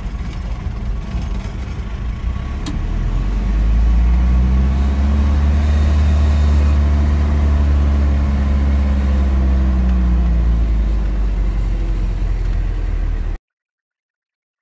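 Flatbed tow truck's engine heard from inside the cab, pulling away and gathering speed: the drone rises in pitch about four seconds in and settles lower again near the end. A single sharp click sounds a couple of seconds in, and the sound cuts off abruptly just before the end.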